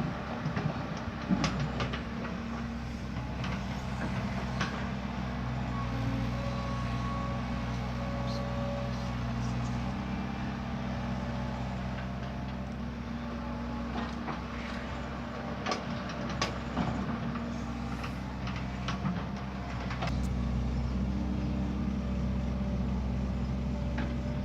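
Heavy diesel earthmoving machinery running steadily, with scattered sharp clanks and knocks; it gets louder about 20 seconds in.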